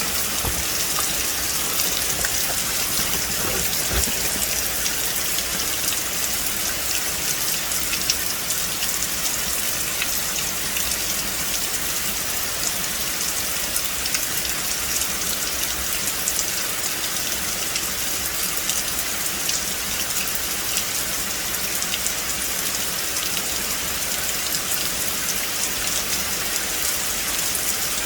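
Steady rain falling on a forest: a dense, even hiss of many drops on leaves, peppered with individual drop ticks.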